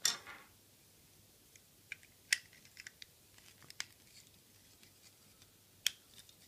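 Hard plastic parts of a Transformers Seacon figure (Nautilator) clicking and snapping as they are handled and pushed into place: a handful of sharp clicks spread across the stretch, with faint scraping in between.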